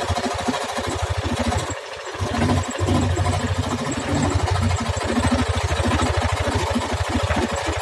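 Electric jigsaw cutting wood, its blade stroking rapidly and evenly; the sound eases briefly about two seconds in, then carries on.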